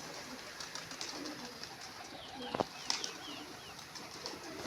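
Domestic pigeons cooing faintly, with a few short high chirps around the middle and a single sharp tap a little over two and a half seconds in.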